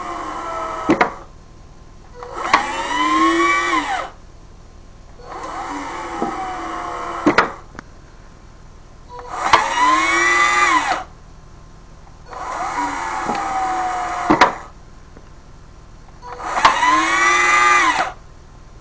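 Old Black & Decker cordless drill motor, driven by an Arduino, winding and unwinding the cord on a spool to raise and lower a chicken coop door. It runs in whining bursts of about two seconds, roughly every three and a half seconds: five runs plus the tail of another that ends about a second in. The runs alternate between a whine that sags steadily in pitch and a louder one that rises and then falls, with sharp clicks where several runs start and stop.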